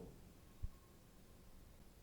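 Near silence after the music fades out, with one brief low thump about two-thirds of a second in.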